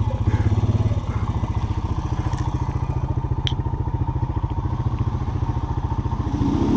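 Off-road bike engine running at a steady, low speed with an even pulsing beat, easing off slightly about a second in.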